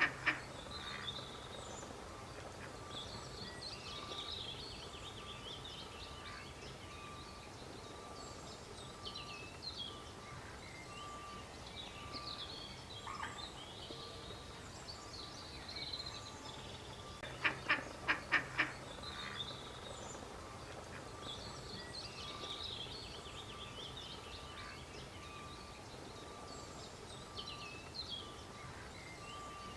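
A duck quacking in a quick run of about four loud quacks a little past halfway, over frequent high, chirping peeps.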